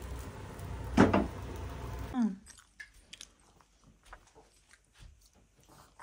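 Steady background noise with one brief sharp sound about a second in. After about two seconds it drops to near quiet, leaving a toddler's small clicking mouth noises as he sucks and chews on his fingers.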